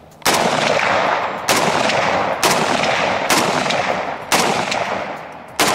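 Six rapid rifle shots from a Browning BAR MK3 DBM semi-automatic in .308 Winchester, about one a second, each followed by a long rolling echo.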